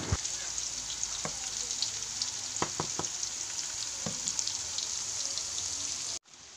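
Cooking oil sizzling steadily in a pan, with a few light knocks. The sound cuts off abruptly near the end.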